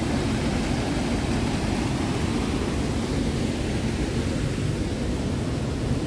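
Steady rushing roar of the Manavgat waterfall, a broad, low river cascade, with an even level.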